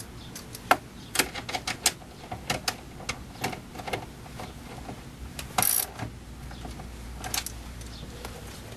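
Ratchet socket wrench clicking in short, irregular runs as 10 mm mounting bolts are tightened, with one brief louder burst a little over halfway through.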